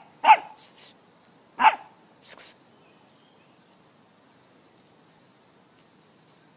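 Staffordshire terrier puppy giving two short, sharp play barks at a locust in the first two seconds, each followed by a brief high hissing rasp.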